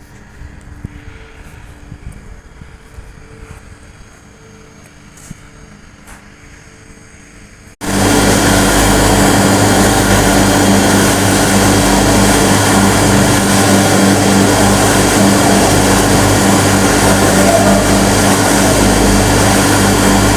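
A faint hum with a few light clicks, then, about eight seconds in, a loud machine starts abruptly and runs with a steady dense drone and a deep hum.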